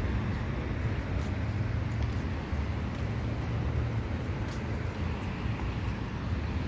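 Steady outdoor background noise, mostly a low rumble, with no distinct event standing out.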